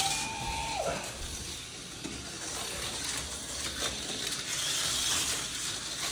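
TYCO HO-scale slot cars running on the plastic track: small electric motors whirring over a steady high buzzy hiss, with one motor's whine falling sharply in pitch about a second in, and a few light ticks.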